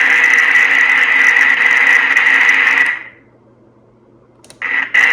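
1960s germanium transistor radio's speaker giving a loud static hiss with a faint hum under it, which cuts out about three seconds in and crackles back near the end.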